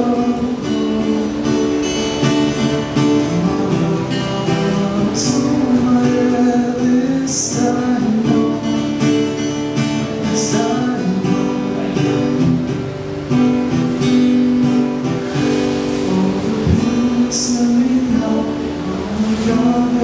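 Acoustic guitar strummed with a man singing along, a live solo acoustic song.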